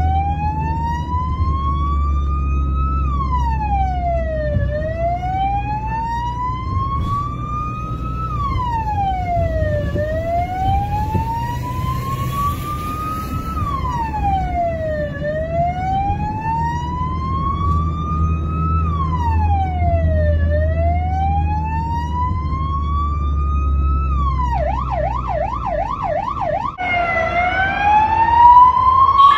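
Spanish ambulance's electronic siren in a slow wail over a low engine rumble: each cycle rises for about three seconds and drops quickly, repeating about every five seconds. Near the end it switches to a fast yelp for a couple of seconds, then breaks off, and a new rising tone starts.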